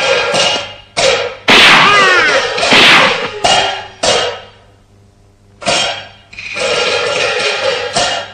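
Beijing opera percussion ensemble: a string of loud cymbal and gong crashes, irregularly spaced and ringing on with a gliding tone, from about a second in to about four seconds. After a short lull comes one more crash, and then the orchestra's melody comes back.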